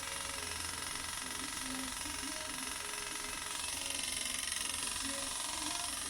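Steady electric whir of a scalp micropigmentation (tattoo) machine running, with faint voices underneath.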